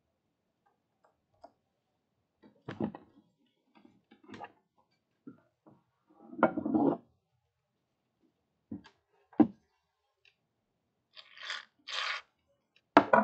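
Aerosol can of shaving foam spraying onto slime in two short hisses near the end. Before that, scattered knocks and thumps, with a sharp loud knock just before the hissing and another at the very end.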